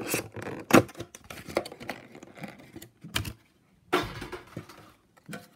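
Clear plastic packaging insert being pried out of a Pokémon card tin: crackling plastic with a run of sharp clicks and knocks, the loudest a snap about a second in, then more clatter and rustling a few seconds later.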